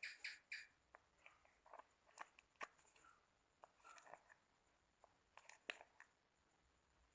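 Homemade slime being squeezed and poked: a quick run of small squeaky squelches ends about half a second in, followed by scattered faint sticky clicks and pops.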